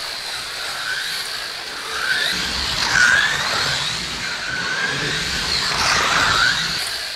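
Pioneer slot cars, a '67 Camaro and a '68 Mustang, racing round a plastic track, their small electric motors whining and rising and falling in pitch about once a second as they speed up on the straights and ease off for the curves.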